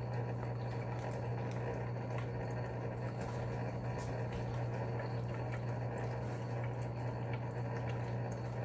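Aquarium equipment running: a steady low motor hum with continuous bubbling, trickling water, and a few faint ticks.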